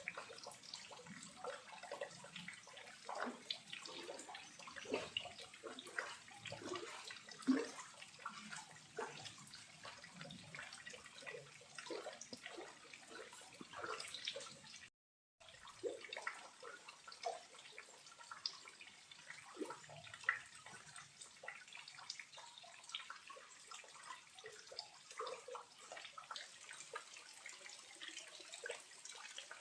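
Small waterfall with low flow, its water trickling and splashing in a busy patter of many small drops. The sound cuts out completely for about half a second halfway through, then resumes unchanged.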